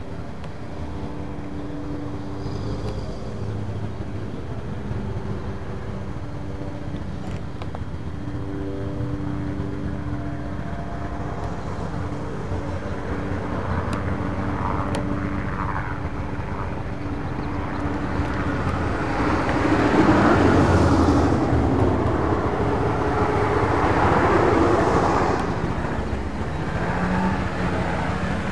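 Outdoor engine noise: a steady low drone with a few held tones, swelling louder about twenty seconds in and fading again a few seconds later.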